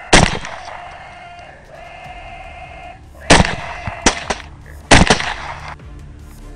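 Four rifle shots at feral hogs: one right at the start, then three more in quick succession about three seconds later, each under a second apart, every shot followed by a short echo.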